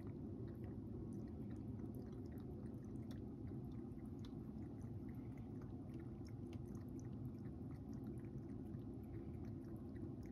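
Cat crunching dry kibble from a bowl: faint, irregular small crunches and clicks over a steady low hum.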